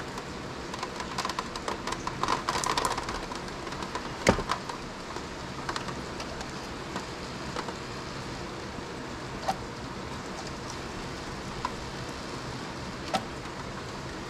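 Small steel fishhooks clinking and clicking against an aluminium jig-head mold as they are set in, then a single sharp metal knock about four seconds in as the mold is handled, and a few lone ticks later, over a steady hiss.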